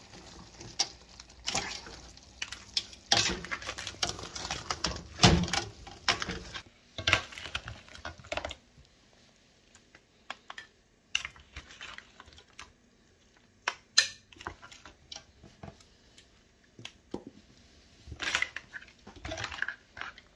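Irregular clicks and knocks of a cooking spoon against a steel pot and a plate as soup is served out. They come thickest in the first several seconds, thin out in the middle and bunch up again near the end.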